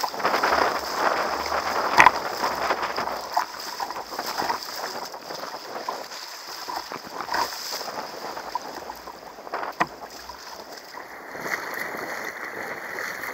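Choppy sea water sloshing and splashing against the hull of an RTM Tempo sit-on-top kayak as it is paddled, with the paddle blades dipping in and wind on the microphone. There are a couple of sharp slaps, about two seconds in and near ten seconds.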